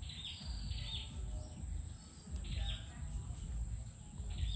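A bird calling: a short phrase of high, falling chirps, repeated three times about two seconds apart, over a low rumble.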